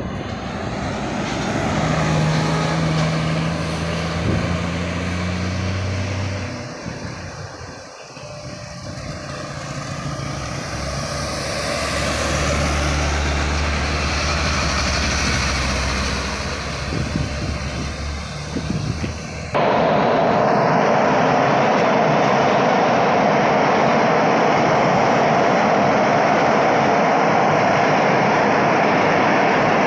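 A coach bus's diesel engine passes with a steady engine note, then a tank truck's diesel engine pulls past with a deeper drone. About two-thirds through, the sound cuts abruptly to a steady, louder rushing noise.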